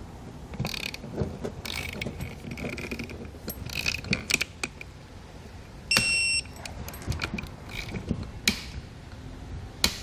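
Snap-on digital torque wrench ratcheting in short strokes as button head cap screws are torqued into an air spring's upper bracket. About six seconds in the wrench gives a short high electronic beep, the signal that the set torque is reached, and a few more clicks follow.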